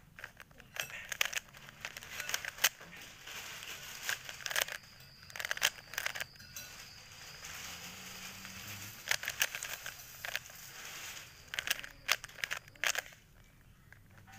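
Plastic 3x3 Rubik's cube being turned quickly by hand: bursts of clicks and rattles as the layers snap round, with short pauses between the runs of turns.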